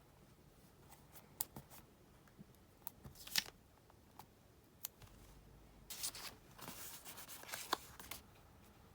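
Paper-crafting handling sounds: scattered light clicks and short rustles of paper, stickers and tape, with a brief burst a few seconds in and a busier stretch of rustling and snipping in the later half.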